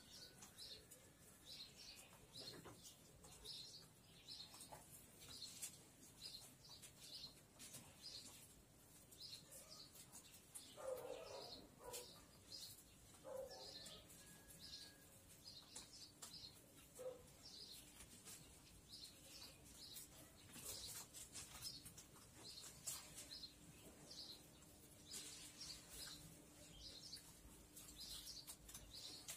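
Faint, steady chirping of a small bird, short high chirps repeated about twice a second. There is a brief soft rustle near the middle.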